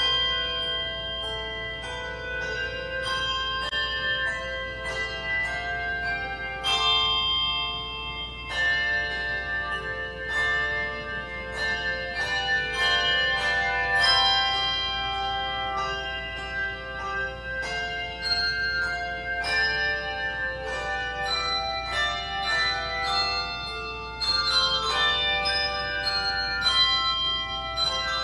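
A handbell choir ringing a piece in chords: many struck bell notes start sharply and ring on, overlapping one another, with louder accents in the second half.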